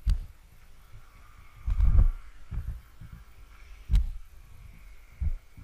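Irregular low thumps of handling noise on a GoPro action camera as it is moved and carried, with one sharper knock about four seconds in.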